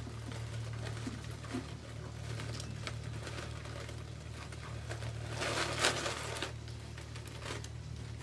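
Poly deco mesh and ribbon rustling and crinkling as a pipe cleaner is fed through the mesh, loudest for about a second between five and six and a half seconds in, over a steady low hum.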